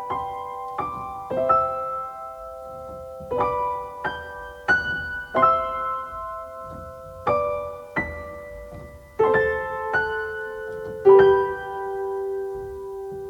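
Gentle solo piano playing a slow, tender introduction: chords and single notes struck about once a second and left to ring, ending on a long held note that fades away.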